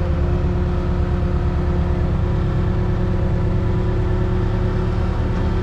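Telehandler's diesel engine running steadily, heard from inside the cab, with an even, unbroken hum and rumble.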